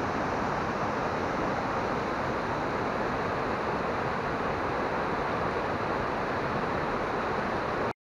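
Mountain stream rushing over small rocky cascades: a steady, even noise of running water, cut off for an instant near the end.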